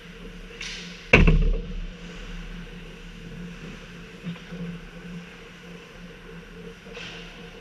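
A single loud bang about a second in with a short booming ring, as of a hockey puck slamming into the rink boards near the camera. Skate blades scrape the ice briefly twice, over the steady hum of the rink.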